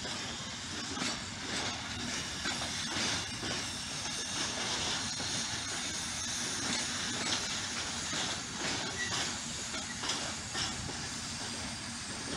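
Freight train's hooded wagons rolling past close by: a steady rolling noise of steel wheels on rail, with repeated clacks as the wheels cross rail joints.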